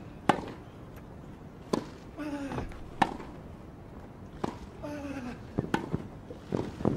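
Tennis rally on a grass court: racquets striking the ball with sharp pops about every second and a half, coming quicker near the end, with a player grunting on a couple of the shots.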